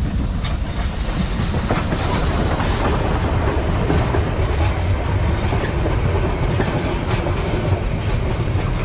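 Narrow gauge steam train rolling past close by, the locomotive and then its coaches, with a steady low rumble and irregular clicks of the wheels over rail joints and points.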